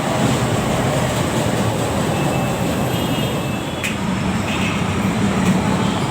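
LRT-1 light-rail train running, a steady rumble with a low hum and a single sharp click about four seconds in.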